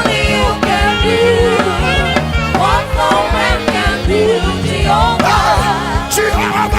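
Live gospel praise music: voices singing over a band with a steady drum beat and bass.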